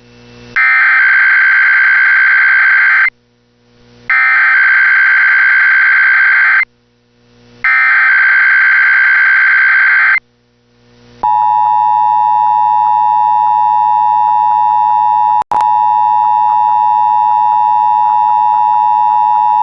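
Emergency Alert System test tones: three bursts of SAME header data, a shrill digital warble about two and a half seconds each with short gaps between, then the steady two-tone EAS attention signal held for about eight seconds, with a brief click and dropout partway through.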